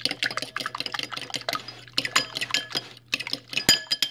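A metal fork beating raw eggs in a bowl: rapid clicking of the tines against the bowl with liquid sloshing. One louder ringing clink comes near the end.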